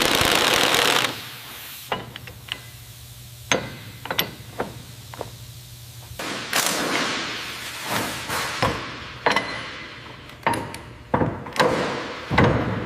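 Metalworking tool sounds: about a second of grinding on metal, then a string of sharp metal clanks, knocks and ratchet-wrench clicks.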